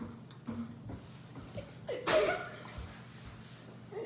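Quiet room tone, broken about two seconds in by a brief burst of a person's voice with a bending pitch, like a short laugh.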